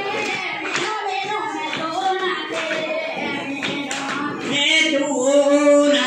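Berunsai dance-song: voices singing a verse over repeated hand claps, with a sung line held near the end.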